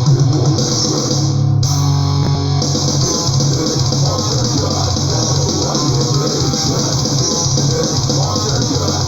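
Death/thrash metal recording playing: distorted electric guitars and bass guitar in a dense, loud, continuous riff.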